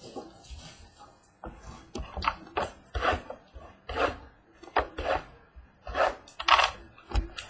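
Hands handling and opening a cardboard Topps Museum Collection baseball card box: a string of short scrapes and rustles of cardboard and packaging against a wooden tabletop, coming roughly once a second.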